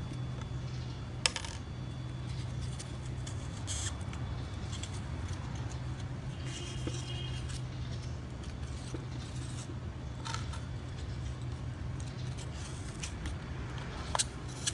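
A few sharp metallic clinks of small metal pieces being handled or set down, the loudest about a second in, over a steady low hum.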